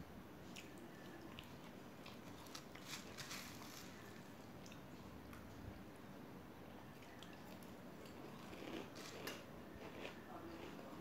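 Faint crunchy chewing and biting of fried pakoda and a spoonful of puffed rice (murmura), heard as irregular crackles that bunch up twice, about a third of the way in and again near the end.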